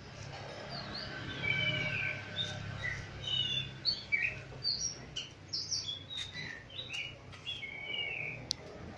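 Birds chirping, many short whistled calls one after another, over a low steady hum.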